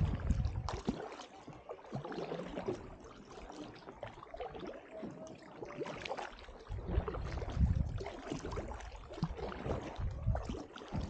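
Double-bladed paddle dipping into calm water beside an inflatable drop-stitch canoe, with drips and small splashes off the blades. A low rumble comes for a second or two past the middle.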